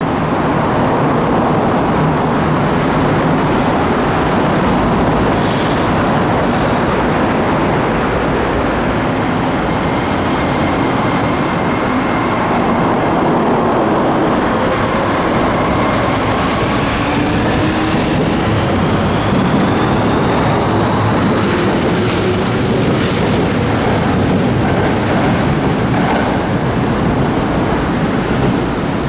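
Kobe Municipal Subway 6000-series electric train pulling out of a station, with a steady running rumble. From about ten seconds in, the motor whine rises slowly in pitch as the train gathers speed.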